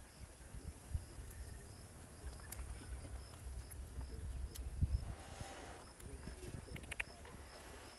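An insect chirping faintly and steadily, a short high note about twice a second, over a low wind rumble. About five seconds in comes a brief scraping rustle as a blade cuts into a small fruit, followed by a few sharp clicks.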